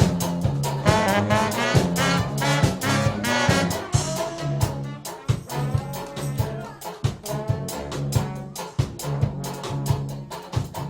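Russian-style brass band playing a lively, swinging tune over a moving bass line and a fast, steady beat.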